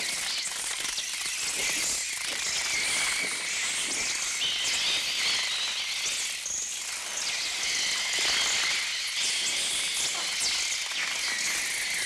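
A swarm of attacking sparrows chirping and twittering in a dense, unbroken mass of high, shrill calls, made electronically on a Mixtur-Trautonium rather than recorded from live birds. The level stays steady throughout.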